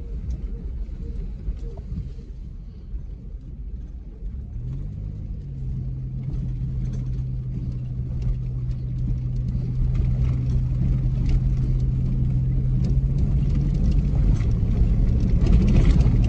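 Dodge Grand Caravan minivan driving on a gravel road, heard from inside the cabin: a low tyre and road rumble with a steady engine hum that comes up about four seconds in, holds, and drops slightly in pitch near the end.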